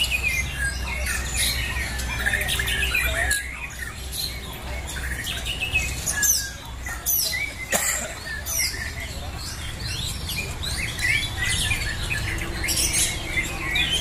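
Several caged songbirds singing at once: a dense mix of overlapping whistles, chirps and trills.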